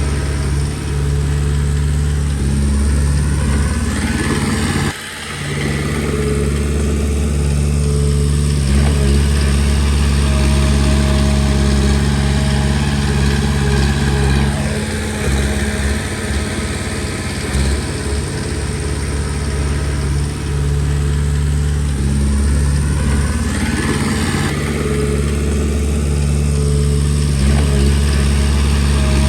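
Komatsu D20P bulldozer's diesel engine running under working load, its revs rising and falling in a repeating cycle about every ten seconds, with a brief drop in level about five seconds in.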